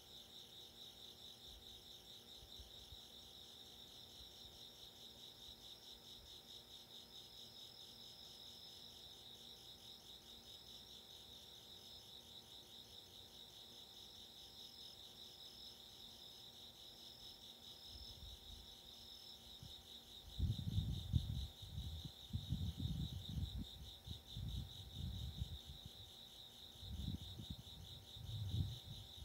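Crickets trilling in a steady, high-pitched chorus of rapid pulses, with a second, higher insect call joining for a while in the middle. From about two-thirds of the way in, irregular low rumbles break in and are the loudest sounds.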